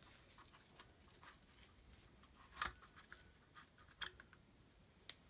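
A few faint plastic clicks and knocks from a Testo 570 digital manifold's housing being handled and taken apart, against near silence.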